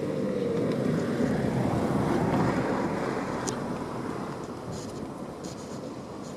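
Tobu 800 series electric train running through the level crossing: a rumbling rush of wheels on rail that swells to its loudest about two seconds in, then fades as the train moves away.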